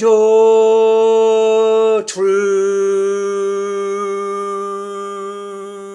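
A singing voice holding long, slow notes: one sustained note, then a step down about two seconds in to a lower note held steadily and fading away near the end.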